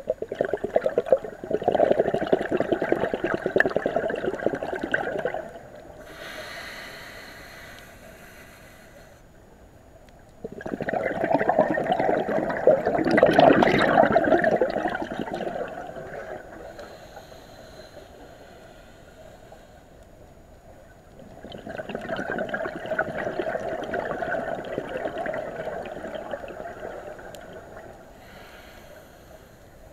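Scuba diver breathing through a regulator: three long bubbling rushes of exhaled air about ten seconds apart, each lasting about five seconds. Between them is the fainter, higher hiss of an inhalation.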